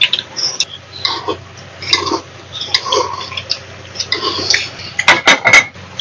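Metal chopsticks clinking and scraping against stainless steel bowls while ramen noodles are slurped. A quick run of sharp clinks about five seconds in is the loudest part.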